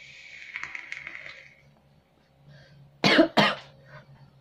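Vape draw on a Voopoo box mod: about a second and a half of hiss with crackling pops from the coil as it fires. About three seconds in come two loud coughs.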